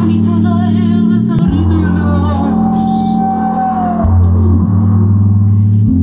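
Live electronic pop: synthesizers hold steady bass notes that change every second or two, with sliding glides in pitch, under a woman singing a long held note.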